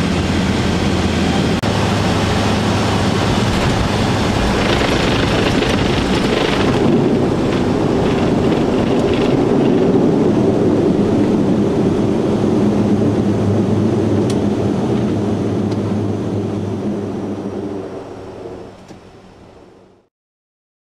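The four turboprop engines and propellers of an RAF C-130 Hercules, heard from inside the cockpit as a loud, steady drone with a deep hum under it. It fades out near the end and then stops.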